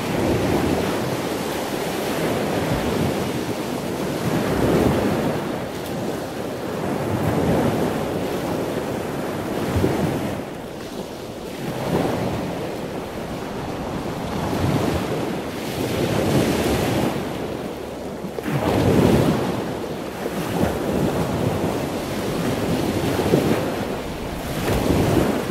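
Ocean surf: waves breaking and washing in, the rush of water swelling and fading every few seconds.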